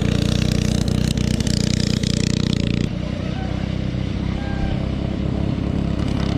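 Go-kart's Predator 212 single-cylinder four-stroke engine with a stage one kit running hard as the kart launches and pulls away. The engine note steps down a little about three seconds in.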